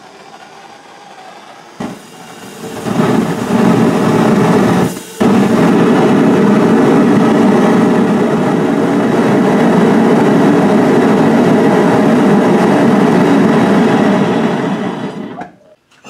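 Homemade propane foundry burner made from pipe with a flared nozzle, running with a steady rushing roar of burning gas. It is quieter for the first two seconds, grows much louder about three seconds in as the flame grows, cuts out for an instant about five seconds in, then runs steadily until it dies away near the end when it is shut off.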